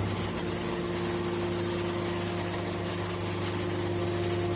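Hydraulic baler's power unit, an electric motor driving the hydraulic pump, running with a steady hum.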